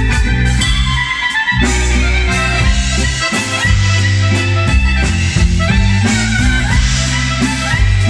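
Live clarinet and accordion duo playing a lively tune. The clarinet carries the melody over the accordion's chords and steady bass notes, and the bass drops out briefly about a second and a half in.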